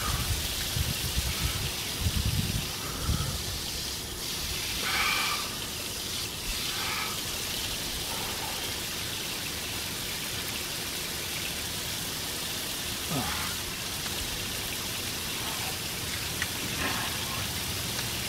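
Water running from an outdoor yard hydrant and spattering onto wet ground in a steady rain-like patter, with splashes as hands scoop water up to the head.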